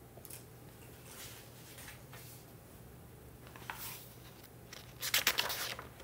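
Paper rustling as a picture book's pages are turned, one short burst about five seconds in after a few quiet seconds with a faint steady hum.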